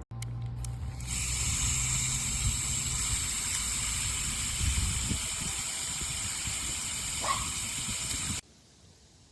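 Small electric fountain pump in a plastic bird bath bowl running, with a low hum, and water spraying and splashing steadily from about a second in. The splashing cuts off suddenly near the end.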